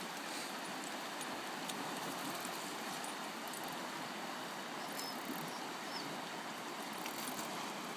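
River water rushing over rocks in shallow riffles: a steady, even wash.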